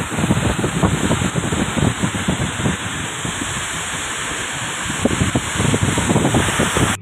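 Steady rushing of wind and rain with irregular low buffeting of wind on the microphone, heard from a moving vehicle.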